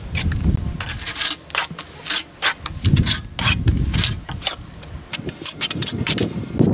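Wet cement mortar being scraped and rubbed onto brick with a plastering float, in a run of irregular rubbing strokes with sharp scrapes.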